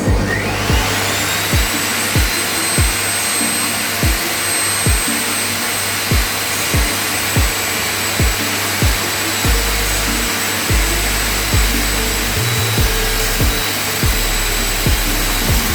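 An electric workshop tool's motor spins up right at the start, its whine rising, then runs at a steady pitch with a constant hiss. Background music with a steady beat plays underneath.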